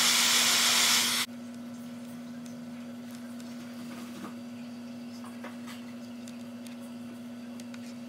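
A Seaflo automatic bilge pump's 12-volt motor running dry with a steady whirring hiss, cut off suddenly with a click about a second in. After that there is only faint room hum and a few light ticks.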